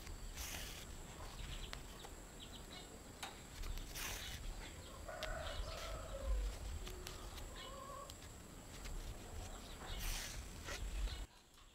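Hand sewing: embroidery thread drawn through cotton fabric in a few soft swishes, with fabric handling. Short animal calls in the background around the middle, bending up and down in pitch.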